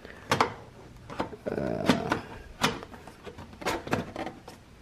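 Handling noise of parts in a car's engine bay: a few irregular knocks and clicks, with a short scraping rub about a second and a half in, as hands work around the radiator and plastic coolant overflow tank.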